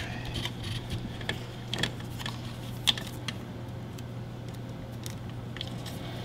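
Scattered small clicks and rustles of a plastic zip tie and wires being handled and threaded against a circuit board, over a steady low hum.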